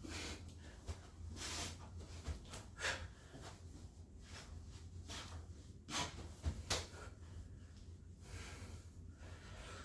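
A man breathing hard while doing burpees, puffing out a series of short, sharp breaths a second or more apart.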